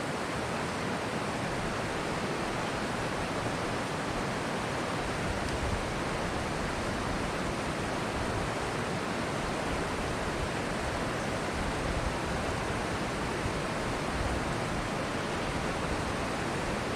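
Steady rush of flowing creek water, an even hiss with no pauses.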